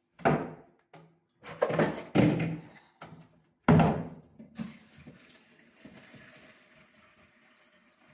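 Four heavy knocks or thumps in the first four seconds, the loudest near the middle, then a faint steady hiss.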